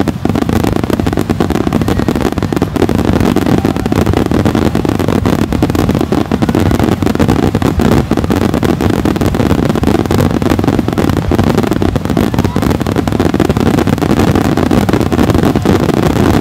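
Starmine fireworks barrage: shells launching and bursting in rapid succession, blending into a continuous loud rumble thick with sharp cracks.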